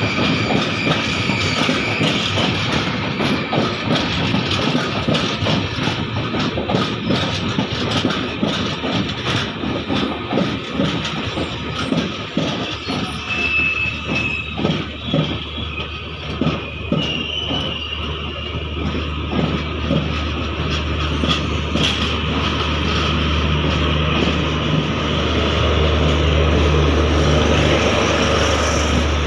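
Indian Railways passenger coaches rolling slowly past, wheels clattering over rail joints with a few brief high wheel squeals midway. Near the end the steady hum of the electric locomotive builds as it comes alongside.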